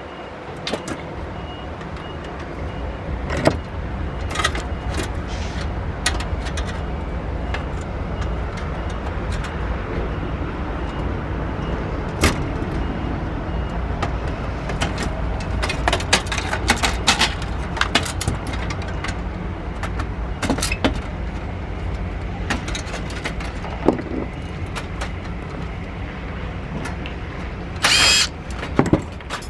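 Scattered clicks and knocks of parts being handled and taken apart, over a steady low rumble, with two louder, rasping bursts near the end.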